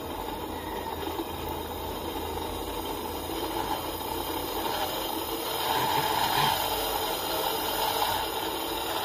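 Single-phase capacitor electric motor running on reduced voltage through a series test lamp, humming steadily. The running noise swells louder about two-thirds of the way through as the motor picks up speed; its speed keeps rising and falling, a fault whose cause is not known.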